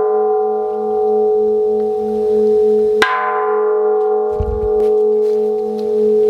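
A deep bell struck and left to ring, its long hum wavering slowly; it is struck again about three seconds in. A soft low thud comes about a second after the second strike.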